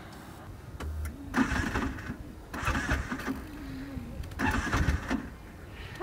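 Auto-rickshaw engine being cranked over and over, turning over in short bursts about every second and a half without catching.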